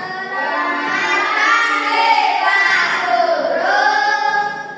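A class of young children chanting together in a drawn-out, sing-song chorus, their answer to the teacher's good-morning greeting; it fades out near the end.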